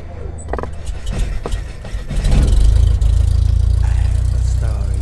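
Cinematic intro sound design: a few sharp hits and clicks, then a loud deep rumbling drone that swells in about two seconds in and holds steady.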